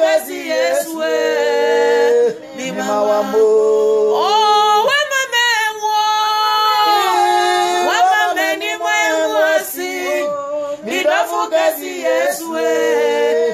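Two women singing a gospel worship song together, with long held notes that slide between pitches.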